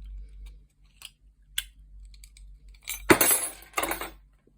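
Light metal clicks as a key is worked in an old Godrej two-lever cabinet lock, then about three seconds in a louder jangling clatter of keys and lock metal lasting about a second.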